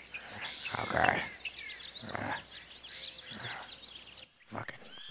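Woodland birds chirping and calling, with three louder rustling noises about one, two and three and a half seconds in. Near the end the outdoor background cuts off abruptly, and a few sharp clicks follow.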